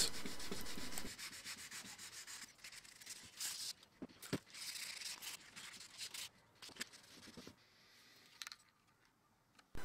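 800-grit sandpaper rubbed by hand over the filler-primed steel axe head, flattening the primer, in faint irregular strokes that stop about seven and a half seconds in.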